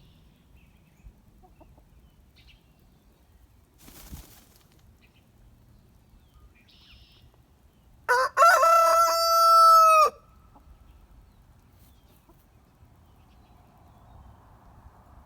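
A rooster crows once, about halfway through: a loud cock-a-doodle-doo lasting about two seconds, opening with a short note and ending in a long held note that drops at the end. The rest is faint background.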